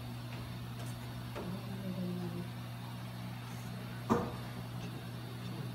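Steady low hum of room background noise, with a single sharp knock about four seconds in.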